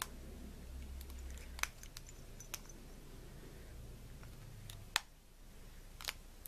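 Quiet hand-handling of a steel shaft as rubber bands are worked onto it: about five scattered sharp clicks and taps, the loudest about five seconds in, over a low steady hum.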